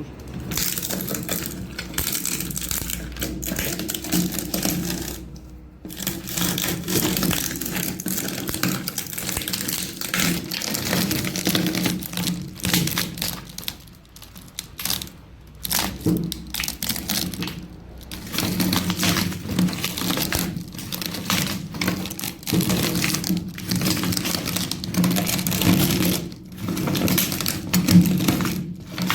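Electric meat grinder running with a steady hum while walnuts crack and rattle through it in dense, irregular clicking. The noise drops away briefly a few times.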